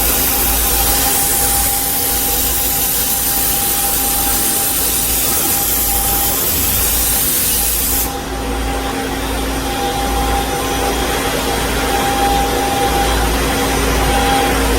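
KOTEC Diamond-1000T high-speed band saw machine running with a steady hum, under a loud hiss that cuts off suddenly about eight seconds in while the machine keeps running.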